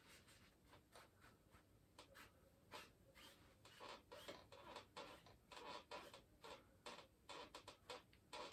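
Faint strokes of a paintbrush on canvas: short, irregular scratchy swishes as oil paint is blended into the sky, coming more often in the second half.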